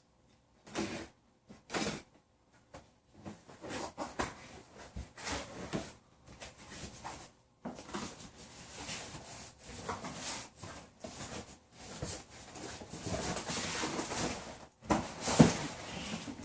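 Packaging being handled and opened by hand: irregular rustling and scraping of box and wrapping, with light knocks and a louder bump near the end.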